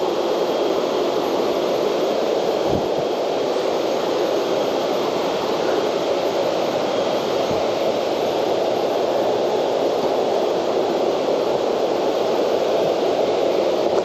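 Waterfall: falling water making a steady, even rushing noise.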